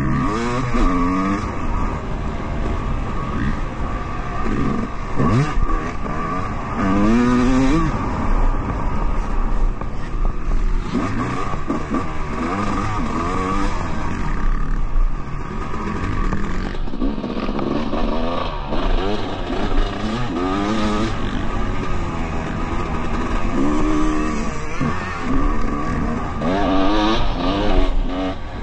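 Motocross dirt bike engine heard from on board, revving up and dropping back again and again as the rider accelerates, shifts and brakes around the track.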